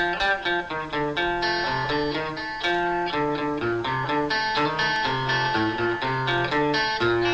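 Instrumental break in a song: a plucked guitar plays a melody of quick single notes over a moving bass line, with no singing.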